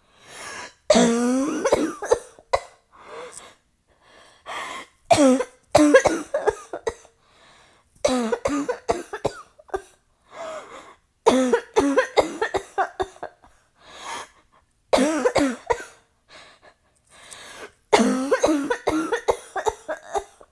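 A woman coughing in about six fits of several coughs each, one fit roughly every three seconds, with short breaths between. The coughing is acted as an asthma attack set off by cigarette smoke.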